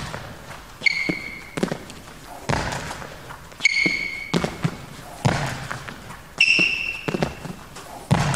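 Court shoes squeaking on a sports-hall floor and feet thudding as a badminton player lunges forward and pushes back, three times over. Each sharp squeak comes with footfalls and a heavy landing thump, echoing in the hall.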